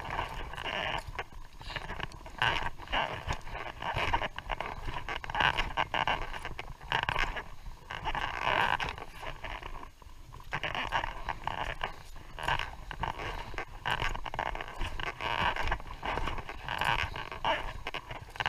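Footsteps crunching and scraping over loose, rounded moraine stones and gravel, with heavy, rhythmic breathing from the walker climbing uphill.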